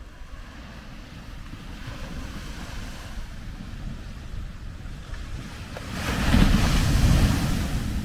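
Small ocean waves breaking on a sandy beach: a steady low rumble of surf, then about six seconds in a wave breaks and its foam rushes up the sand, the loudest part, easing off near the end.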